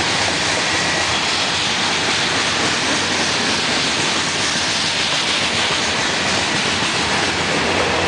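Freight train's covered hopper cars rolling past at close range: a steady, loud rushing noise of steel wheels running on the rails.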